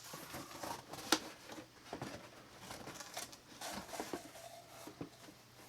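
Packaging being handled: irregular rustling and scattered light clicks, with one sharper click about a second in.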